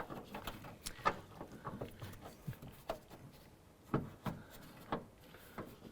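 Irregular light clicks and knocks of a small mounting bracket and door-handle parts being handled and fitted inside a car door shell, about ten in all, the loudest about a second in and again near four seconds.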